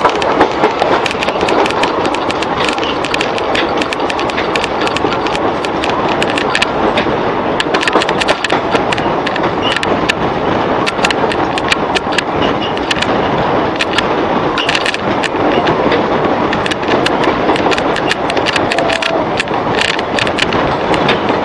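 Indian Railways passenger train running at speed, heard from an open coach door: a steady rumble and rattle of wheels on rail, with frequent sharp clicks and clacks.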